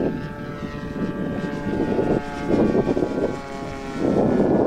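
Small model-aircraft propeller engine running steadily at a constant speed, with bursts of low rushing noise over it.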